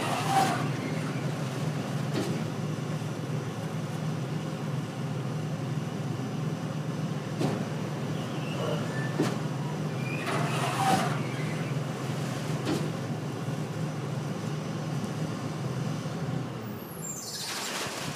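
Steady low mechanical hum of a truck running the hydraulic drive of a Keith walking-floor trailer, with a few sharp knocks spaced a couple of seconds apart.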